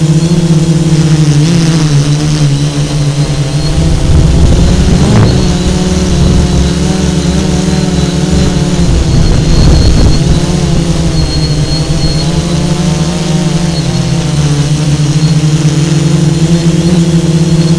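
Multirotor drone's electric motors and propellers humming steadily, heard loud and close. The pitch wavers and dips twice, about a quarter of the way in and past halfway, with a low rumble swelling each time.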